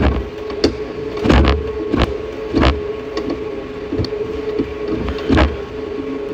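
Stationary exercise bike in use: a steady whir with a short knock about every two-thirds of a second.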